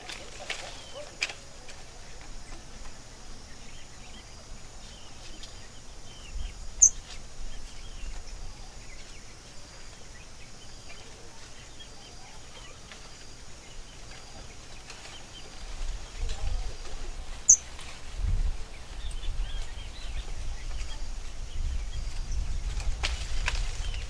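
Outdoor rural ambience with faint, scattered bird chirps. Two sharp clicks about ten seconds apart are the loudest events, and a low rumble sets in over the last third.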